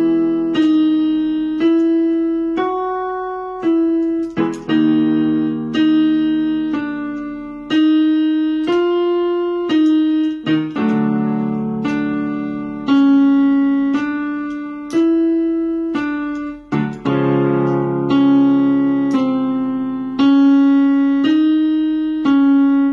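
Electronic keyboard with a piano sound played with both hands: single notes struck about once a second, stepping up and down, over a held chord. The chord changes about every six seconds.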